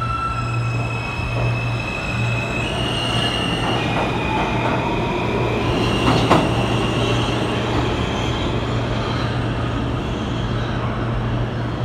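Subway train pulling out and accelerating, its electric traction motors whining in tones that step up in pitch over the first few seconds over a steady low hum. There is a single sharp clack about six seconds in.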